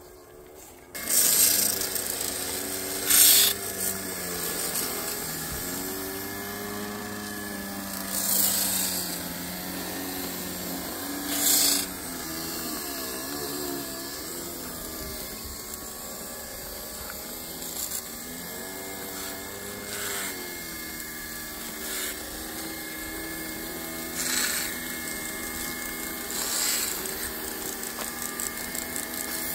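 Small electric motor of a G-scale track-cleaning brush car whirring as it spins its brush along the rails, its whine wavering up and down in pitch. It starts abruptly about a second in, and short, louder rushes of scraping noise come every few seconds.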